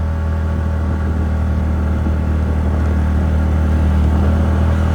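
TVS Ntorq 125 scooter's single-cylinder engine running under steady throttle while riding, a steady low drone that barely changes in pitch.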